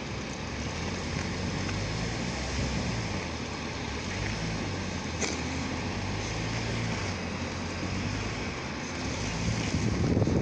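Snowstorm wind blowing with a low, steady engine hum underneath, and a single sharp click about five seconds in.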